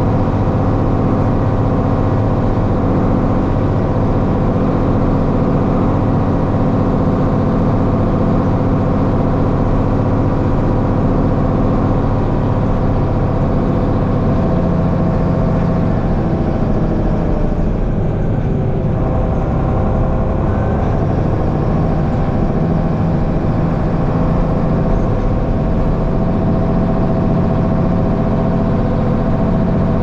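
Heavy farm-machinery engine running steadily, a continuous even drone.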